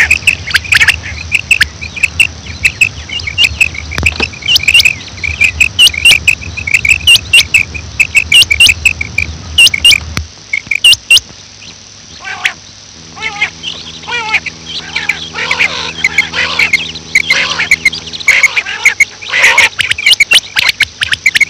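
Female quail calling: a fast series of short, high calls, with sharp clicks among them. About ten seconds in, the calls become denser and more varied.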